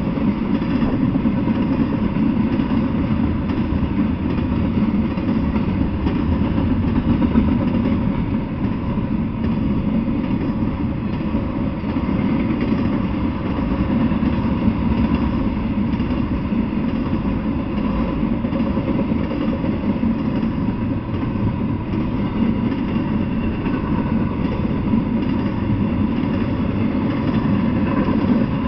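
Intermodal freight train rolling past, its loaded cars' steel wheels running steadily on the rails without a break, with a faint thin hum riding over the noise.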